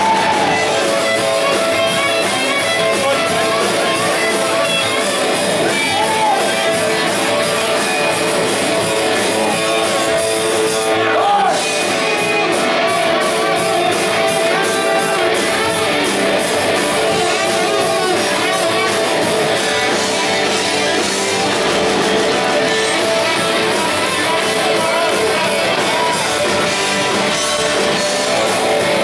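A rock band playing live, with guitars and drums.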